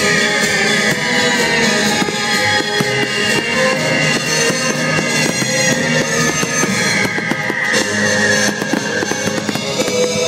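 Loud music with held tones plays throughout, while fireworks shells burst and crackle over it, the bangs coming thicker near the end.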